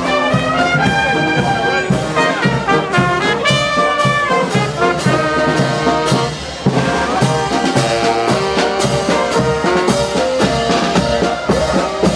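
Marching band playing a march: trumpets, trombones and saxophone over a steady bass drum beat.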